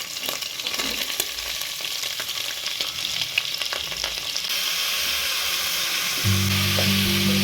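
Food sizzling as it fries in a pan, with a utensil stirring and scraping now and then. Steady low music notes come in about six seconds in.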